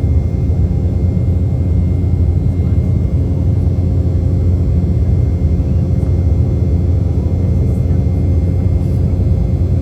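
Cabin noise of an Embraer 195 airliner under way, heard from inside: a steady low rumble from its GE CF34-10E turbofans and airframe, with a faint steady whine over it.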